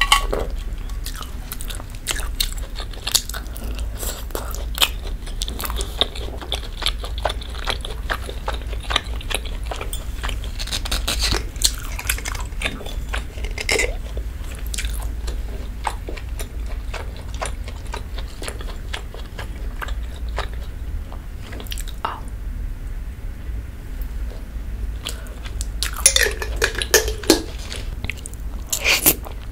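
Close-miked eating sounds: chewing with many small wet mouth clicks, and near the end a louder burst of slurping rosé spaghetti off a fork.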